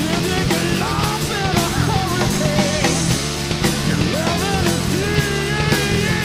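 Rock music with a singing voice over drums and guitar.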